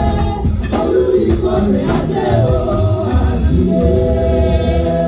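Gospel music with a steady drum beat and voices singing together.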